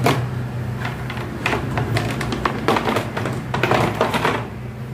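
Hard black plastic panels of a Tabitha cabinet clattering and knocking against each other as they are lifted and stacked by hand: a string of short knocks and clicks, busiest near the end, over a steady low hum.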